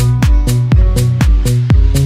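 Background music with a steady kick-drum beat, about two beats a second, over a bass line.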